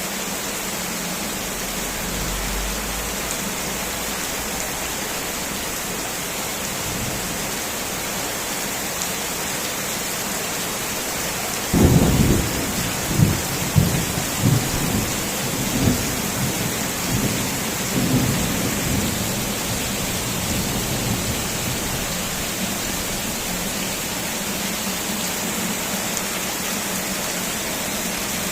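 Heavy rain falling steadily, with a sudden thunderclap about halfway through that rolls on in rumbles for several seconds.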